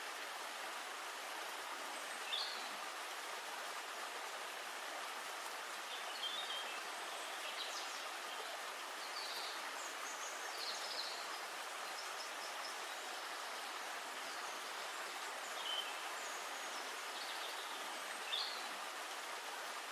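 Steady outdoor noise with short, high bird chirps breaking through every few seconds.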